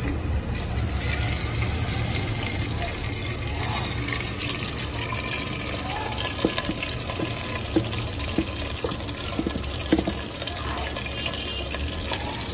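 Thick, wet marinated chicken sliding and plopping out of a plastic bowl into a clay handi as a ladle scrapes it along, the ladle clicking against the bowl several times in the second half. A steady low hum runs underneath.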